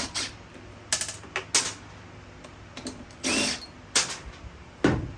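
Hand work on a string trimmer during reassembly: a string of sharp clicks and taps from handling its parts, a short scrape about three seconds in, and a heavier thump near the end.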